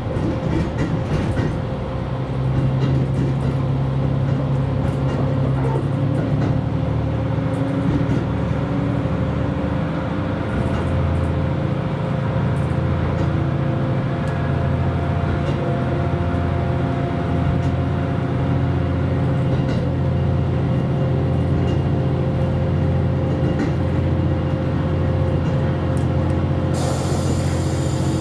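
KiHa 183 series diesel railcar's engines running under power, with a steady low drone that grows louder about two seconds in, heard from the front of the train. A hiss joins in near the end.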